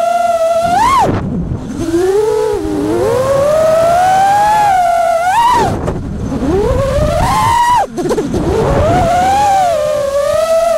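FPV freestyle quadcopter's brushless motors and propellers whining, the pitch rising and falling with the throttle. The whine drops away sharply about a second in, just past halfway and again near eight seconds as the throttle is chopped, then climbs back. The quad is freshly PID-tuned with Betaflight's easy tuning method.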